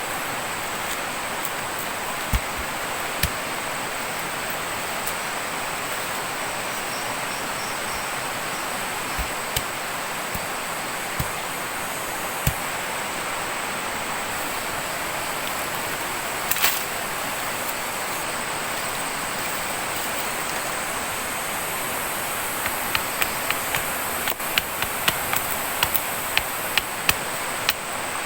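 Steady rush of flowing water. A few isolated sharp clicks, then near the end a run of sharp taps about twice a second.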